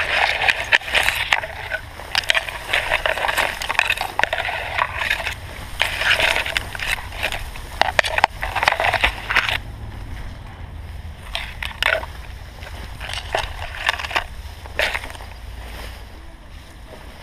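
Tall grass stalks brushing and rustling against the camera and body of someone crawling through them, in irregular bursts that are dense for about ten seconds and then come more sparsely. A steady low rumble of wind on the microphone runs underneath.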